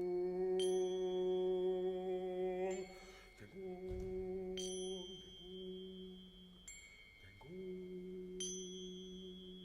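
Sparse ambient performance music: a sustained low hum that breaks off twice and resumes, with four struck bell-like tones ringing out over it every few seconds.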